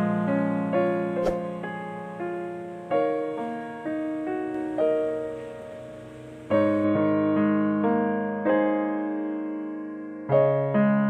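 Background music: a slow, gentle piano melody of single struck notes that ring and fade, with a brief click about a second in.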